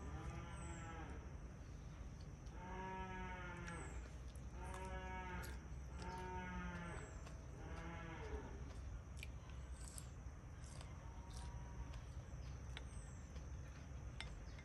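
Farm animal calling repeatedly, each call about a second long: five calls close together, then one more after a pause.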